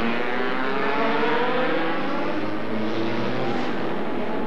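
Formula One cars racing past at high revs, their engine notes sliding down and up in pitch as they go by.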